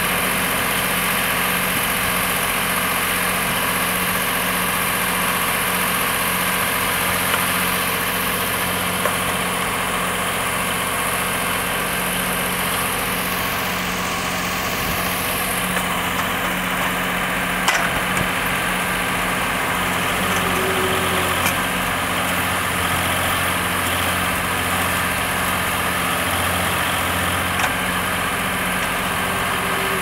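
ACE 550 NG tractor's diesel engine running steadily while it powers a backhoe attachment digging soil, with one brief knock a little past the middle.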